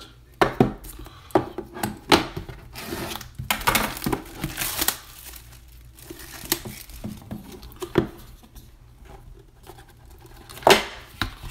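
Shrink-wrap being torn and crumpled off a sealed box of 2016-17 Panini Court Kings basketball cards, with plastic crinkling and several sharp knocks and taps as the cardboard box is handled and opened; the loudest knock comes near the end.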